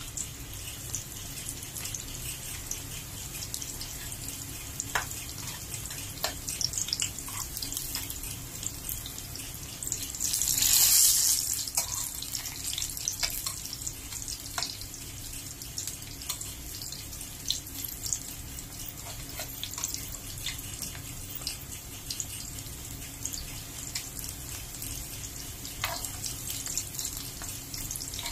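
Oil sizzling and crackling in a frying pan as dried squid and eggplant fry, with scattered pops and the light clicks of metal tongs turning the pieces. The sizzle swells loudly for about two seconds near the middle.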